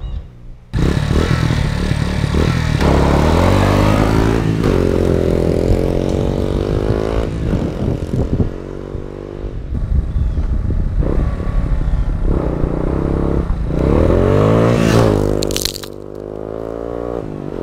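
1982 Yamaha XT250's four-stroke single-cylinder engine revving hard on takeoff, its pitch climbing in repeated rising sweeps as it pulls through the gears. A short sharp clatter of thrown gravel comes near the end.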